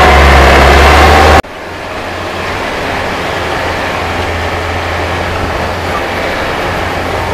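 Vehicle engine running loud, with a strong low drone, cut off abruptly about a second and a half in. It gives way to a quieter steady noise with a low hum.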